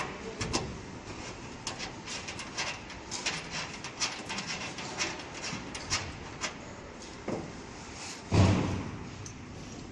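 Scattered light clicks and knocks of electrical cable plugs and connectors being handled on a common rail test bench, with one louder thump about eight seconds in.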